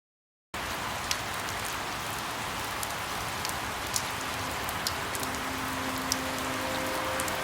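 Silence for about half a second, then steady rain comes in suddenly, with scattered sharp drop ticks over it. Faint soft music tones start to come in near the end.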